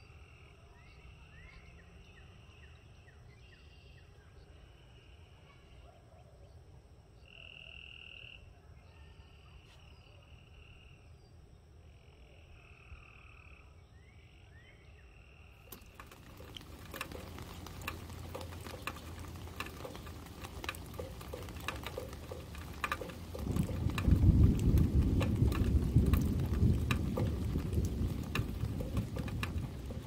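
Frogs calling in repeated high, even trills about a second long each, with short gaps between them. About halfway through, these give way to a rushing wind noise on the microphone with a low rumble, which grows loud over the last six seconds.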